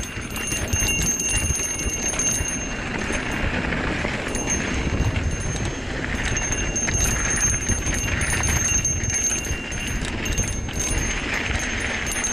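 Mountain bike descending loose, rocky singletrack: wind buffeting the microphone and tyres crunching and rumbling over dirt and stones. On top of this, a fast high ticking buzz from the rear freehub while coasting.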